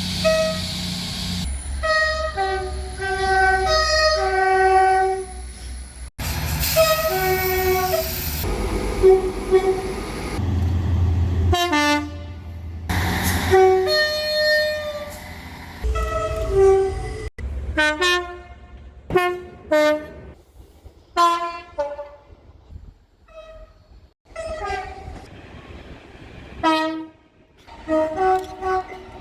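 Two-tone horns of British locomotives and multiple units, heard in a string of separate clips: short blasts alternating a low and a high note, several in each clip. A low rumble from the passing trains lies under the horns in the first half.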